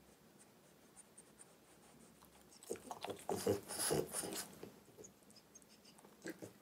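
French bulldog taking pasta noodles off a fork and chewing them: a quick run of mouth smacks and clicks starting about three seconds in, then a few softer smacks.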